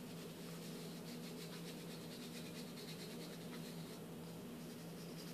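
Light, irregular scratching of a small brush scrubbing a water-damaged phone circuit board, over a steady low hum.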